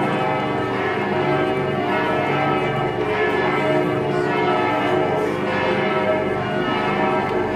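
Church bells ringing continuously, many overlapping tones at a steady level.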